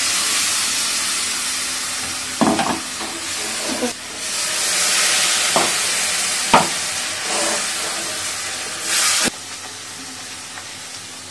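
Water poured into hot oil and masala in a steel kadai, sizzling and hissing loudly, while a wooden spatula stirs the brinjal curry with a few sharp knocks against the pan. About nine seconds in, the sizzle suddenly drops to a quieter hiss.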